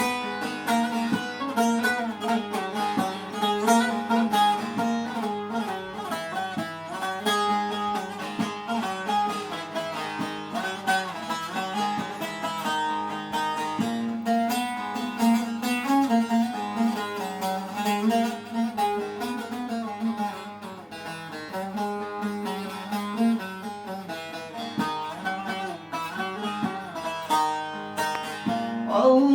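Instrumental interlude of a Turkish song, with plucked string instruments playing a quick melody and no singing.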